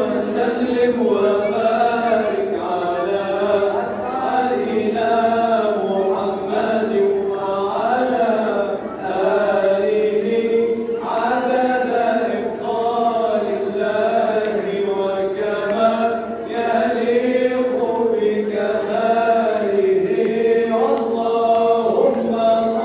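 A group of men chanting an Arabic Islamic nasheed in praise of the Prophet, unaccompanied, led through a microphone. A single melody line bends and wavers with ornaments and runs on without a break.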